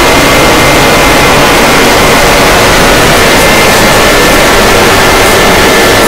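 Overdriven emergency-alert audio: a harsh wall of clipped, static-like noise at full loudness, with faint steady high tones running through it.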